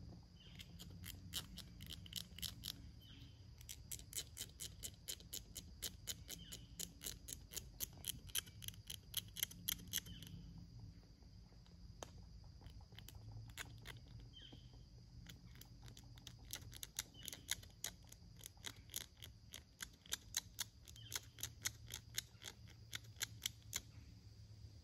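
Runs of sharp dry clicks, about three a second, made with a small object worked in the hands. The clicks pause for a couple of seconds about halfway, and short faint high chirps come in between.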